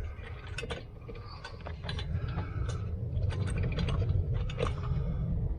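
Irregular light metal clicks and rattles of hands working at the choke linkage rod on a Kohler lawn mower engine's carburetor, over a low steady rumble.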